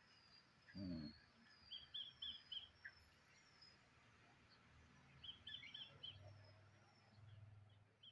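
Faint chirping of small birds, two short runs of quick high chirps a few seconds apart, over quiet ambience, with a faint wavering high whistle early on. About a second in there is one brief low sound.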